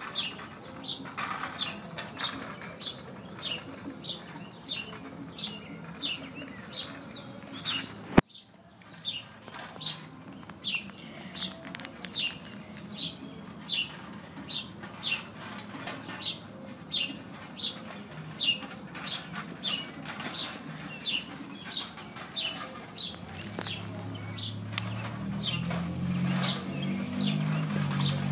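Dog lapping and licking liquid raw food from a metal bowl, in a steady rhythm of about two laps a second. A single sharp click comes about eight seconds in, and a low hum rises in the last few seconds.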